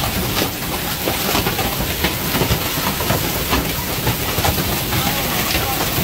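Hail and heavy rain pelting down: a dense, steady clatter of hailstones striking the ground and a parked car within a constant hiss.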